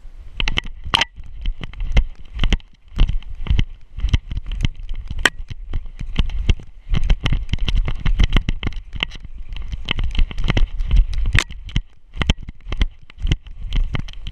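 A dog running and scrambling through snow, heard from a camera strapped to its back: a dense, irregular run of thumps, knocks and rattles from its footfalls and the jolting harness mount, several a second, over a low rumble of handling on the microphone.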